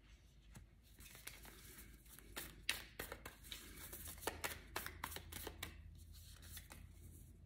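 A deck of tarot cards being shuffled by hand: a quiet, irregular run of card flicks and snaps that starts about a second in.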